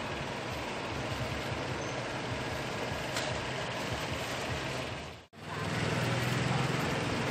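Steady background noise with a low machine-like hum. The sound cuts out for an instant about five seconds in, then comes back with the hum louder.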